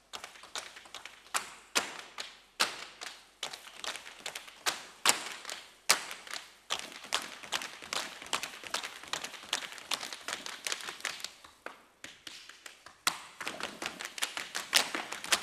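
Tap shoes of a tap dance group striking the stage floor in a fast rhythm of sharp clicks, without music. The tapping thins out near the end, then a loud stroke brings back denser tapping.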